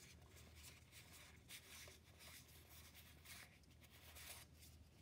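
Faint sliding and light clicks of trading cards rubbing over one another as a stack of booster-pack cards is thumbed through, in an otherwise near-silent room.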